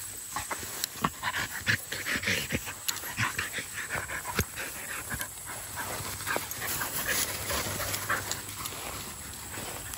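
A dog panting, with grass rustling and crackling as it runs and rolls on its back in tall grass.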